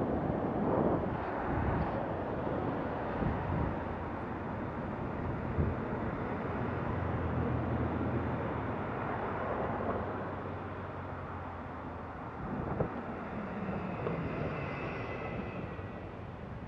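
Street traffic heard from a bicycle: a pickup truck's engine running close ahead, with a steady low hum while the bike is nearly stopped behind it, and some wind on the microphone.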